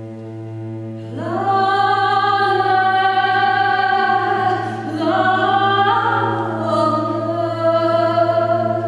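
Chamber string orchestra playing live: a held low drone, joined about a second in by higher sustained parts that slide up into their notes and get louder. The chord shifts again, with more upward slides, about five and six seconds in.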